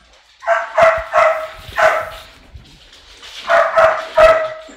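A pet dog barking loudly in two quick bouts, four barks, then three more after a pause of about a second and a half: a sudden, spontaneous outburst.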